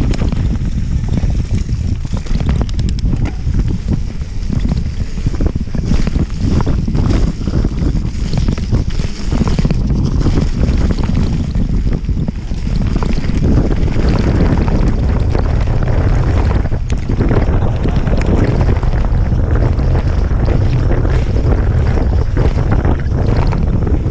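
Mountain bike descending a dirt downhill trail at speed: heavy wind buffeting on the microphone over the rumble of knobby tyres on dirt, with frequent short rattles and knocks from the bike as it hits bumps and roots.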